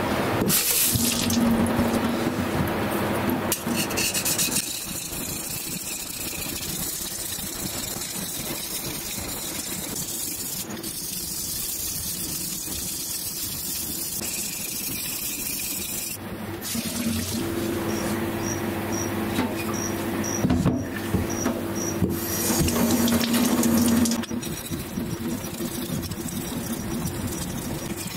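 A metal ruler's edge being rubbed back and forth on a wet ceramic whetstone, with a steady watery wash like running water. The wash is louder near the start and again about two-thirds of the way through.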